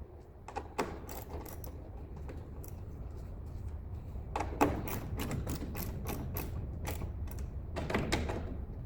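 Irregular clicking and clattering of hand work on a truck's tail light parts, the clicks coming in clusters, over a steady low hum.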